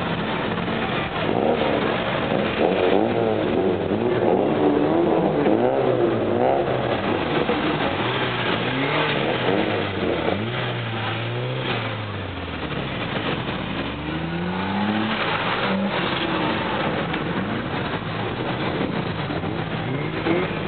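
Car engines revving, their pitch climbing and dropping again and again, with several engine notes overlapping in the first half.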